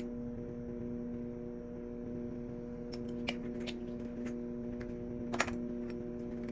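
A few sharp light clicks and taps from kitchen utensils as seasonings go into a bowl of chopped chives, over a steady hum.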